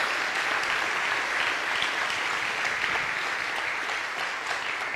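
A congregation applauding: steady clapping from many hands that eases slightly toward the end.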